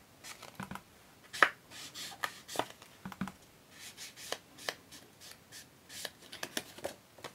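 Sponge dauber tapped along the edge of a card stock panel on a craft mat to ink the edges sharply: a string of short, irregular light taps with some paper handling.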